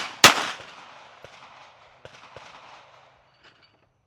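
Glock pistol fired, one shot about a quarter second in, close after the previous one, its report echoing and dying away over the next couple of seconds. A few faint sharp cracks follow.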